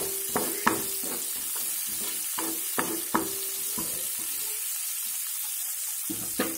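Chopped shallots sizzling in hot oil in a metal kadai on high flame, with a wooden spatula scraping and knocking against the pan as they are stirred, some knocks leaving a brief ring of the metal. The stirring stops after about four seconds and the sizzle carries on alone, with one more knock near the end.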